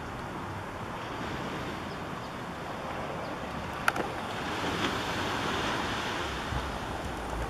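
Ocean surf washing on a beach as a steady rushing noise that swells for a couple of seconds in the second half. A single sharp click comes just before the swell.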